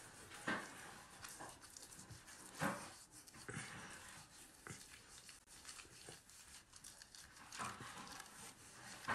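Faint, irregular scrubbing and rubbing of a handheld facial cleansing brush worked over wet skin, with a few brief louder rustles.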